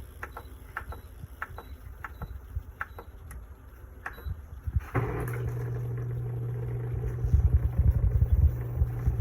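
A run of light clicks, then about five seconds in a COMFEE' countertop dishwasher's pump starts with a steady hum as it pumps water in.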